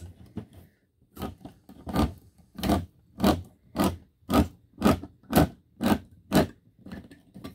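Manual can opener cutting around the lid of a tin can: a crunching scrape with each turn of the crank, about two turns a second, starting about a second in.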